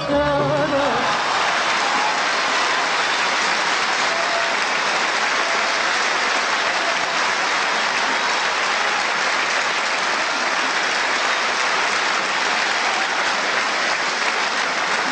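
Audience applauding steadily, after the last sung note and the Arabic orchestra's accompaniment die away in the first second.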